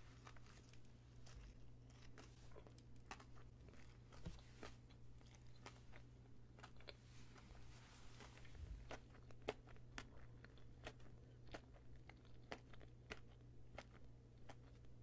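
Soft, close-miked chewing of a sprinkle-coated, chocolate-filled donut: light crunches from the sugar sprinkles and small wet mouth clicks scattered throughout.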